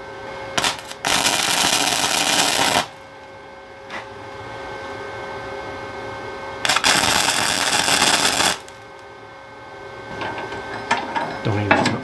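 Wire-feed welder arcing in two short bursts of about two seconds each, one starting about a second in and the other a little past halfway, as steel mount plates are welded to a sawmill frame.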